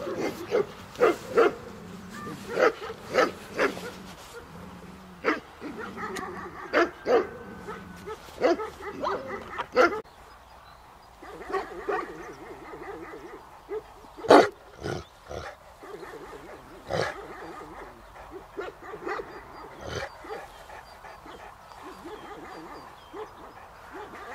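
Tibetan Mastiffs barking in short, irregular barks, close together for the first ten seconds and then sparser, with the loudest bark about two thirds of the way through.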